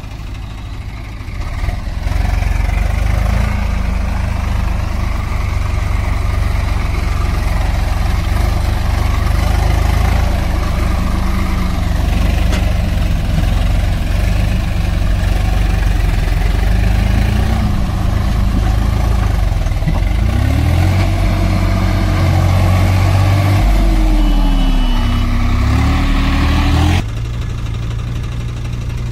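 Heavy diesel engine running hard, its pitch rising and falling as it is revved in the last several seconds. The sound drops abruptly in level near the end.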